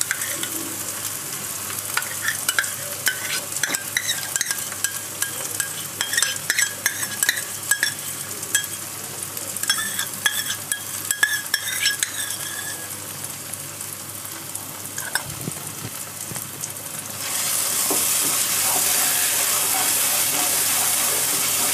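Spice masala frying and sizzling in a non-stick pan, with many quick metal clicks and clinks of a spoon scraping cream from a cup into it. About 17 seconds in the sizzle turns louder and steadier as the masala is stirred.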